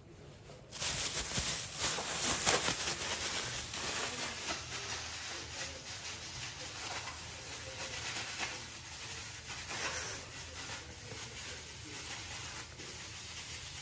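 Thin plastic bag crinkling and rustling as hands knead beef tripe and garlic miso marinade inside it. The rustling starts under a second in, is loudest over the next couple of seconds and slowly gets softer.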